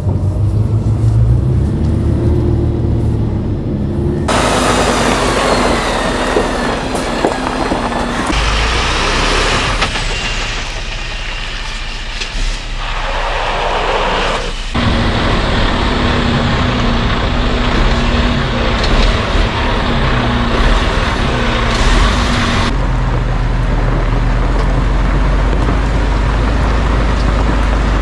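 Mercedes-Benz Arocs tipper truck's diesel engine running as the truck drives over gravel, heard across several cut-together shots. The engine note and loudness change abruptly at each cut.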